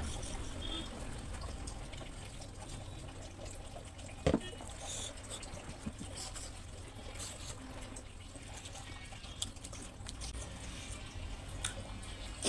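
Wet chewing and lip-smacking of a person eating rice by hand, with fingers gathering grains from a banana leaf. Scattered sharp mouth clicks, one louder about four seconds in.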